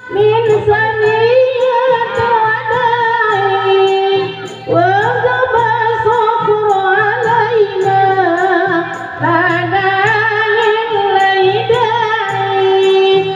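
Music: a woman singing a wavering, ornamented melody in phrases a few seconds long over a steady low bass beat.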